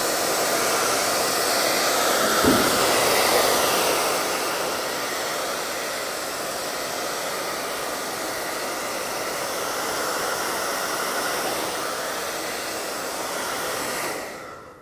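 Handheld hair dryer blowing steadily, drying fresh paint on a wooden box; it cuts off near the end.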